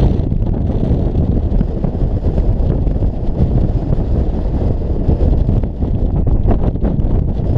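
Strong wind buffeting an action camera's microphone: a loud, steady, low rumble.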